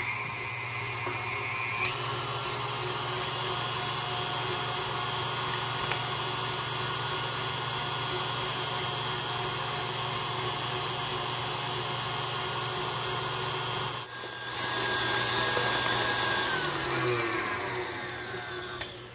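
KitchenAid Classic stand mixer's motor running steadily, its wire whip beating heavy cream. The pitch steps up about two seconds in. The sound breaks off briefly about two-thirds through and comes back louder, then winds down with falling pitch near the end.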